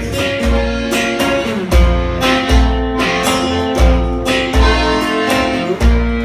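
Instrumental passage of a song: guitar strumming over a steady bass beat.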